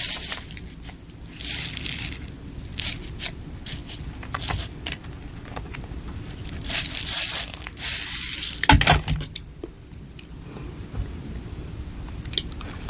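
Plastic snack packaging crinkling and being torn open in several rustling bursts, with a single knock about two-thirds of the way through.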